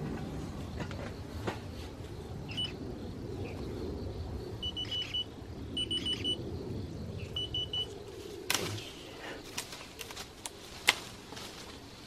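Three short runs of rapid electronic beeps around the middle, then a series of sharp snips from battery-powered pruning shears cutting apple shoots, the loudest near the end.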